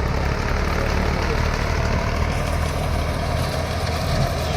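Rice combine harvester's diesel engine and machinery running steadily with a constant low hum and a steady higher whine.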